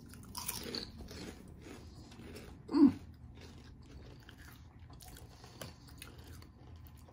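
Two people biting into and chewing Lay's Layers, airy puffed ring-shaped potato chips, a run of small crisp crunches. A brief hum from one of them about three seconds in.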